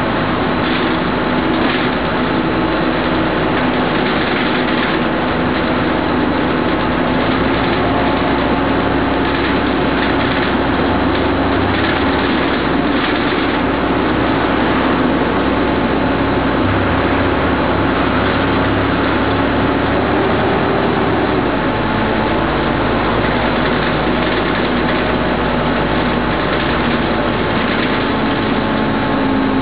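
Dennis Condor double-decker bus's diesel engine and drivetrain running while the bus drives, heard from inside the lower deck: a steady drone whose pitch shifts a little as the bus changes speed.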